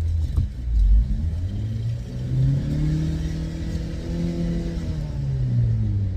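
Opel Zafira B's 1.8 petrol engine running in gear with the car lifted, revving up and then easing back down to spin the wheels while listening for a humming hub bearing.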